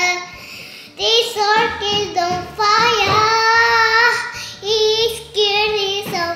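A young girl singing in short phrases of held, gliding notes, beginning about a second in.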